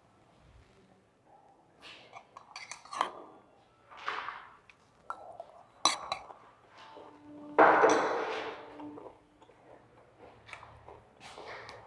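Scattered small clinks, clicks and knocks of objects being handled, with a louder rough scrape lasting about a second and a half near eight seconds in.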